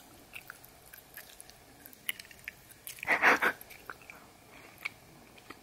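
Close-up chewing of a sticky butter rum caramel that clings to the teeth: faint wet clicks and smacks of the mouth working at it. About three seconds in there is one louder, breathy mouth noise.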